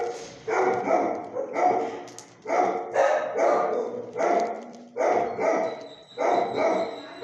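A dog in a shelter kennel barking over and over, a steady run of loud barks about one or two a second.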